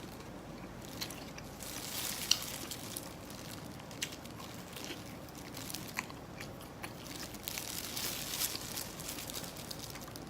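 Close-up crunching and chewing of food, with many small sharp cracks and clicks.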